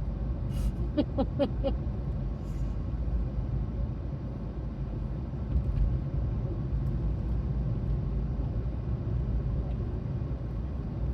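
Steady low rumble inside a car with the engine running.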